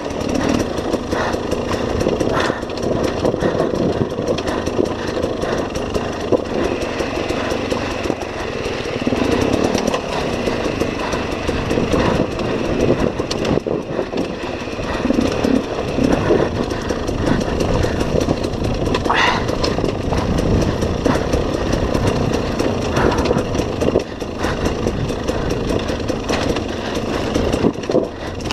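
Enduro dirt bike's engine running with shifting revs as it rides a rough, rocky trail, with frequent knocks and rattles from the bike over the stones.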